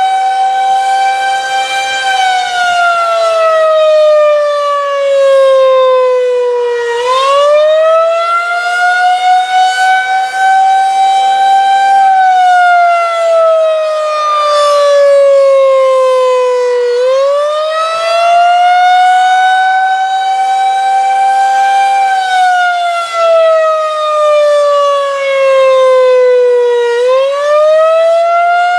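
Federal Signal 2001-130 outdoor warning siren sounding the attack signal: a loud wail that rises quickly, holds briefly and slides slowly down again, about every ten seconds.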